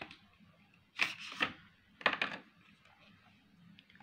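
An eyeshadow palette's box is handled and opened, giving two short bursts of rustling and scraping about a second apart.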